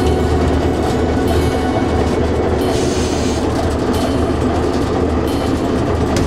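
Narrow-gauge diesel locomotive under way, heard from inside its cab: a steady low engine drone mixed with the running noise of the wheels on the track.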